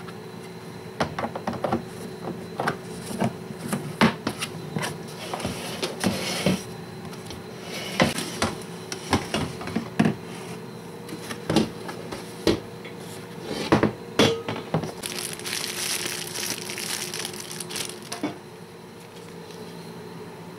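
Objects being handled by hand: a string of irregular clicks and knocks, with two spells of rustling like packaging being moved. A faint steady hum sits underneath.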